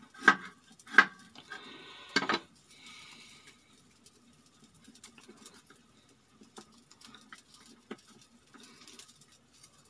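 A large kitchen knife knocks three times on a wooden chopping board in the first two and a half seconds. Faint ticks and handling sounds follow as fingers separate sliced red onion into rings.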